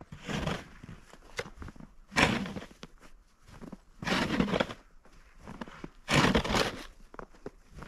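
Plastic snow shovel scraping and scooping through fresh snow, four strokes about two seconds apart.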